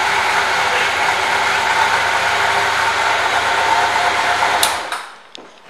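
2000 Honda Nighthawk 750's air-cooled inline-four engine idling steadily, then switched off near the end, with a click just before the running stops.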